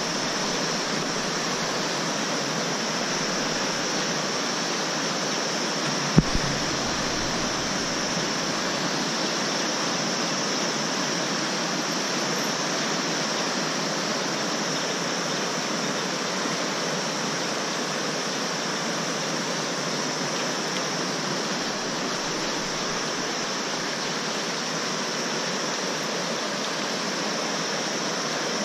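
A fast, rocky mountain stream rushing steadily over stones, a continuous hiss of flowing water. A single brief thump about six seconds in.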